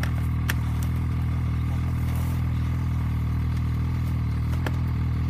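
Snowmobile engine idling steadily, with two faint clicks, one near the start and one near the end.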